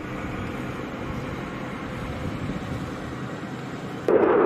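F-35A jet engine noise: a steady, fairly distant rumble, then about four seconds in a sudden jump to a much louder jet engine sound.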